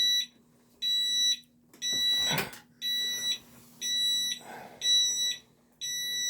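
An electronic beeper sounds a steady string of high-pitched beeps, each about half a second long, about one a second. A low hum runs under them, and there is a brief knock about two and a half seconds in.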